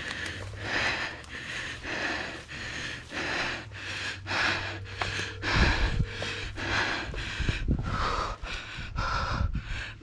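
A person breathing hard and fast, about two breaths a second, while moving through dry grass and leaf litter, with a few low thumps near the middle.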